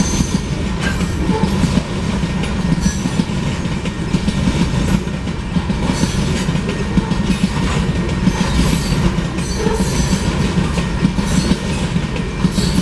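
Freight train rolling past a grade crossing: a steady loud rumble of the cars, with the wheels clacking over the rail joints every second or two.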